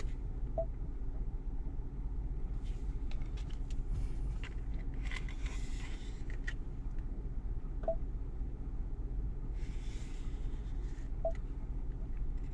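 A plastic squeegee applicator is scraped across a soapy-wet screen protector on a Ford Sync 4 touchscreen in three slow strokes. Light clicks and a few short soft beeps come between the strokes, over a steady low hum.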